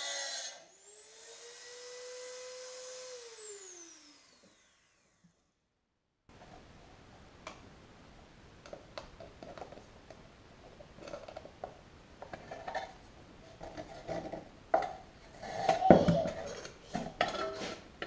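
A handheld rotary tool spins up to a steady high whine, then winds down after it is switched off. After a short silence, sheet-metal parts are handled with scattered light clicks, scrapes and taps, and a louder knock near the end.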